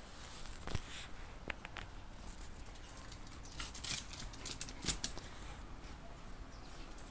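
Scattered light clicks and scuffs of footsteps on concrete, busiest in the middle, over a low background rumble.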